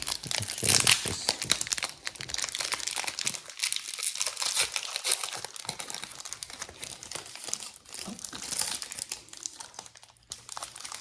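Pokémon booster pack foil wrappers crinkling and being torn open, the rustling loudest about a second in and again near the end.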